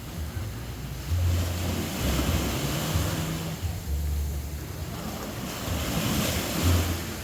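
Sea waves washing onto a sandy beach, swelling twice, with wind buffeting the microphone in low gusts.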